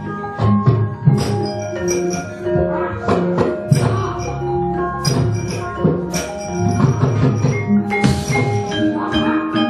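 Javanese gamelan accompanying a wayang kulit battle scene: bronze metallophones ringing steady notes and a hand drum, cut through by many sharp metallic clacks of the dalang's keprak plates.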